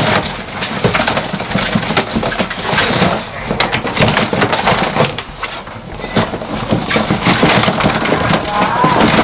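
Dense scratching and plastic clatter from a plastic storage tub: young sailfin dragons (Hydrosaurus amboinensis) scrabbling and jumping inside it, while its plastic lid is slid and knocked against the rim.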